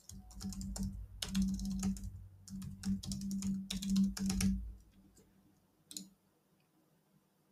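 Typing on a computer keyboard: a quick run of keystrokes lasting about four and a half seconds, followed by one more click about six seconds in.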